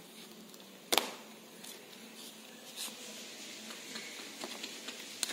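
Handling noise from a child's toy writing-board set: a sharp knock about a second in, then light scattered clicks and rubbing as the board panel and magnetic letter pieces are moved.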